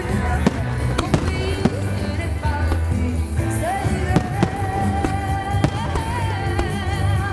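Fireworks shells bursting and cracking, several sharp bangs over a low rumble, while music with a held, wavering melody plays throughout.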